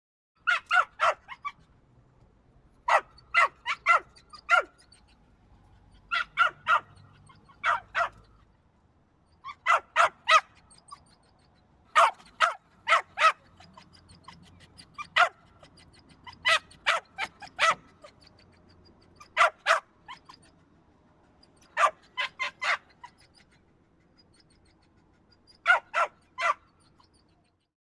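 A dog barking in repeated bursts of three to five quick barks, with pauses of a second or two between bursts.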